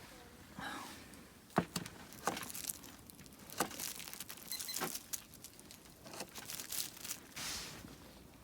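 Crinkling and rustling of food packaging being handled, with several sharp clicks and knocks along the way.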